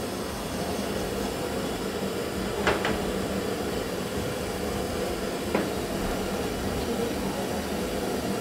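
Gas burner turned up to a high flame under a metal pan of kalla pacha being heated, a steady rushing noise, with two short clinks from the pan, near the third second and again about five and a half seconds in.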